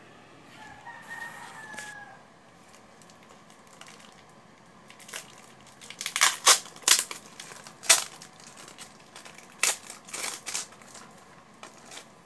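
A rooster crows faintly for about a second and a half near the start. From about six seconds in comes a run of sharp crinkling and crackling handling noises, loudest around six to eight seconds and again around ten.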